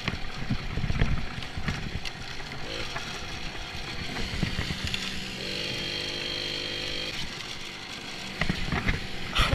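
Moped engine running under way, with wind buffeting the microphone and knocks from the ride over bumpy ground. About halfway through, the engine note steadies into an even drone for a couple of seconds.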